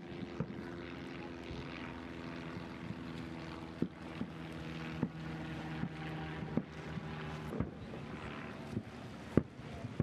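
Aerial fireworks shells bursting with several sharp, irregular bangs, the loudest near the end, over a steady low hum that fades out about three-quarters of the way through.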